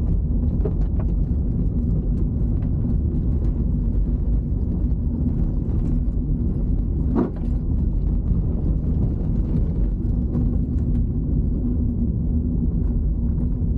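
Steady low rumble of tyre and road noise inside the cabin of an electric Audi Q8 e-tron SUV driving over a rough dirt track, with scattered small ticks. There is one short knock about seven seconds in.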